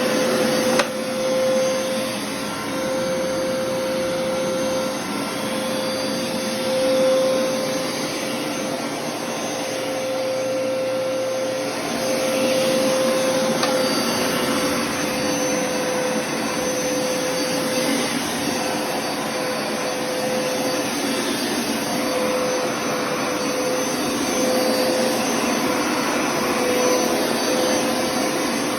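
Vacuum cleaner motor running steadily with a constant whine and rushing airflow; a brief click about a second in.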